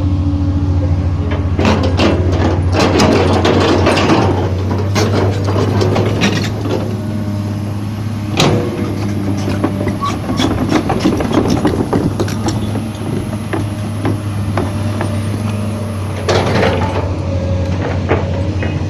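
Komatsu 200-class excavator travelling: its diesel engine runs steadily under load while the steel tracks clank and squeal, in clusters near the start and again near the end.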